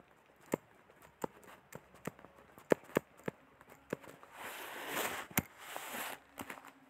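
Faint, scattered sharp taps and clicks, about a dozen, of handwriting on a touchscreen, with a soft rustling hiss for about two seconds past the middle.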